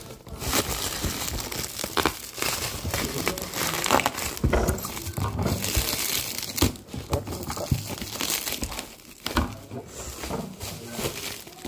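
Black plastic bin bag crinkling and crackling as it is pulled and bunched off a boxed toy, with many irregular sharp crackles and a brief lull a little after eight seconds.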